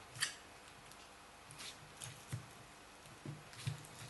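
Faint, scattered clicks and scrapes of a screwdriver working between glued lithium-ion battery cells, prying them loose from the pack. The sharpest click comes just after the start.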